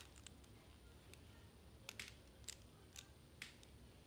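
Faint clicks of plastic Lego bricks being handled and pressed together, a few separate sharp ticks, most of them in the second half, over a quiet room hum.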